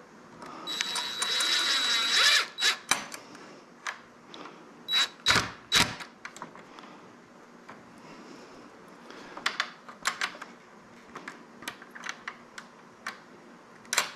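DeWalt cordless drill driving a screw through a steel door hinge into wood: one run of nearly two seconds with a steady whine, then two short bursts with heavy knocks about five seconds in. Scattered sharp clicks follow, the loudest near the end.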